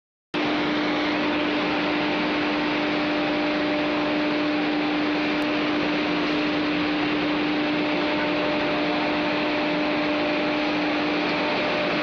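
Wood-chip processing machinery (drum chipper line with its belt conveyor) running steadily: an even, loud hiss with a constant hum underneath that never changes.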